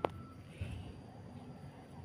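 A single sharp click at the start, then a soft low thump about half a second later.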